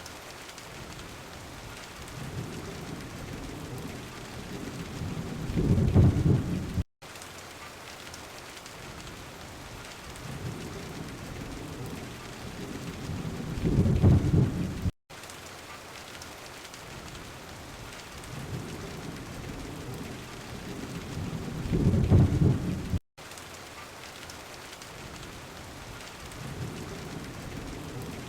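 Steady heavy rain with rolls of thunder: three times a low rumble swells over a few seconds to a peak, then cuts off abruptly with a split-second gap of silence, repeating about every eight seconds as a looped recording.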